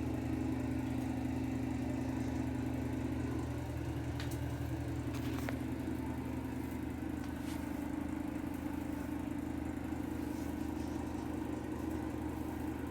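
Steady low motor hum that dips slightly in pitch partway through, with a few faint clicks around four to seven seconds in.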